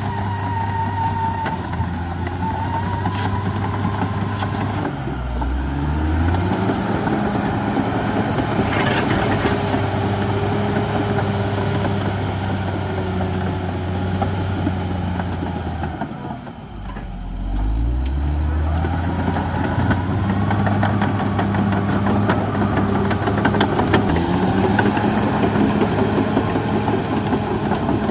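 Caterpillar D6R XL bulldozer's diesel engine running steadily under load. Twice its pitch sinks low and then climbs back up as the engine is throttled down and revved again.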